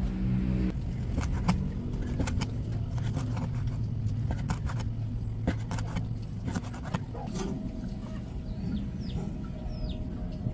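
Knife tapping irregularly on a cutting board as squid is sliced into thin strips, over a low steady hum that fades about two-thirds of the way through. Several short falling bird chirps come near the end.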